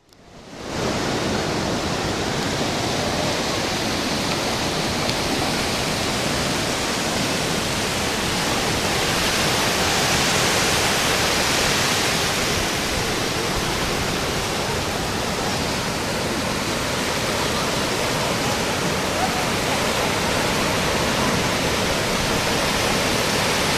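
Ocean surf breaking and washing up a sandy beach: a steady rush of waves, fading in over the first second and swelling a little about ten seconds in.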